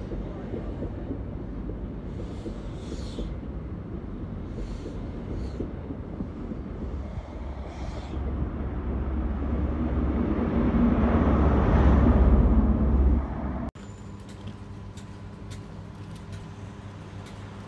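InterCity 125 (HST) train passing at a platform: a steady rumble of wheels on rail that grows louder from about eight seconds in, peaks near twelve seconds and cuts off abruptly. After the cut, a quieter steady hum with a few held low tones and faint ticking from a standing LNER electric train.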